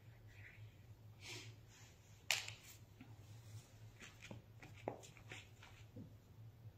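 Faint rustling and light taps of hand work on a painting: a crumpled paper tissue being dabbed on the inked paper, with a few small clicks and one sharper click about two seconds in. A low steady hum runs underneath.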